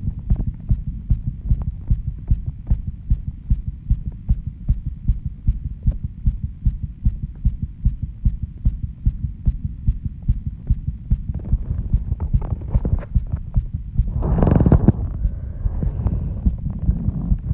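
Human heartbeat pounding after intense exercise: a steady, even rhythm of low thumps. About fourteen seconds in there is a brief, louder rush of noise.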